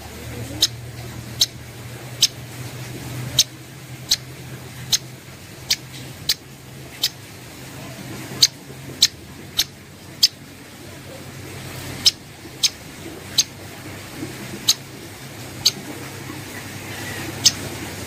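Cica koreng (striated grassbird) giving short, sharp chip notes, repeated irregularly about once a second with a short pause near the middle, over a steady low hum.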